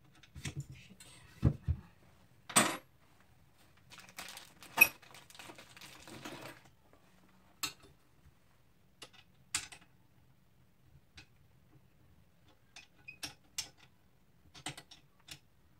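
Parts of a stand knocking and clinking as it is screwed together and tightened by hand. Two dull thumps and a sharp clack come in the first few seconds, then a cluster of clatters about five seconds in, then scattered single clicks and taps.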